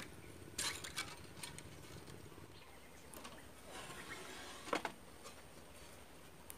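Scattered clicks, taps and rustling from a long green bamboo tube being handled, with a pair of sharp knocks just under five seconds in as the loudest sound.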